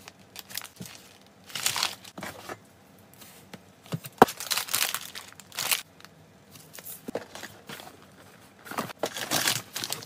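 Plastic packaging crinkling in irregular short bursts as packets of small-pet treats are handled, with one sharp tap about four seconds in.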